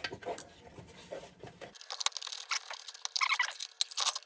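Light metallic clicks and scraping as a stuck kerosene lantern burner is twisted and worked by hand, with denser clicking in the second half.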